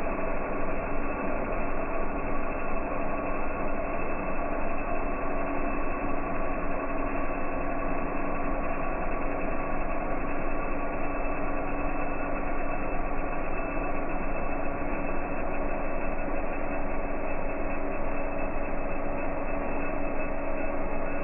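M3D 3D printer running a print: a steady mechanical whine with several held tones over a constant hum from its motors.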